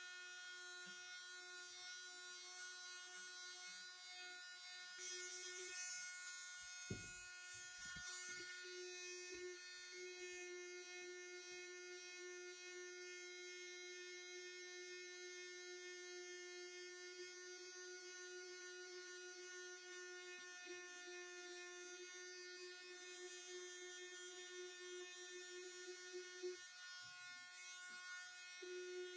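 Small electric power sander running steadily with a constant buzzing whine, sanding down the wooden planked hull of a model ship. A few light knocks come about seven seconds in, and the buzz dips briefly near the end as the sander is lifted or shifted.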